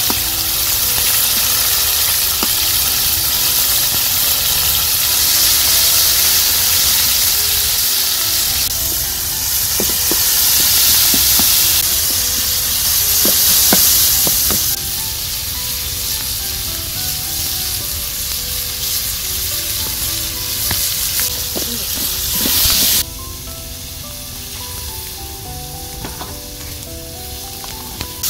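Diced onions, tomatoes and green peppers frying in oil in a wide metal pan, sizzling steadily, with a spoon clicking and scraping against the pan as it stirs. The sizzle drops quieter about halfway through and again near the end.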